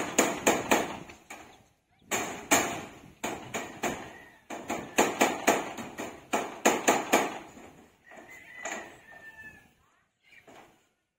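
Hammer driving nails into corrugated metal roofing sheets: quick runs of ringing blows, about three a second, with a short break about two seconds in. The blows stop near the end.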